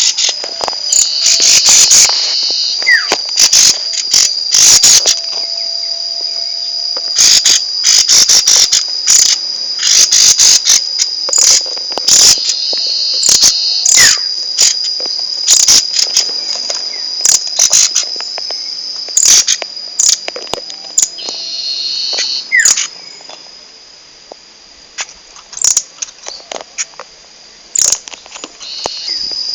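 Nuthatch (rambatan) calling: loud, sharp call notes in irregular quick runs over a steady, high, insect-like trill. The trill fades for a few seconds about three-quarters of the way through and returns near the end.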